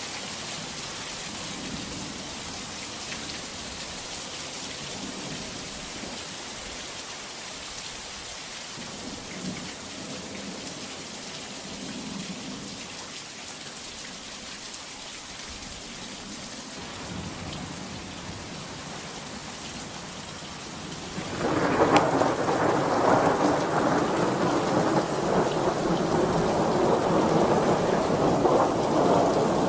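Steady rain hissing down, then about two-thirds of the way through a loud thunderclap cracks overhead and rolls on as a long, heavy rumble over the rain.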